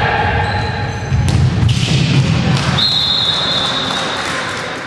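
Futsal ball thudding on a wooden sports-hall floor amid players' and spectators' voices, with a held shout fading in the first second. About three seconds in, a long steady referee's whistle blast sounds.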